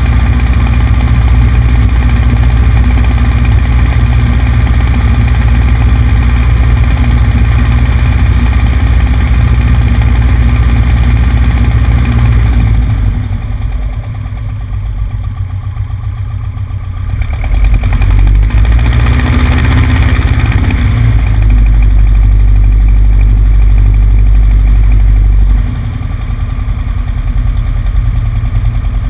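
Cessna 150's four-cylinder piston engine and propeller running steadily, heard from the right wing with a heavy low rumble. The sound drops for several seconds about halfway through, comes back up, and falls slightly again near the end.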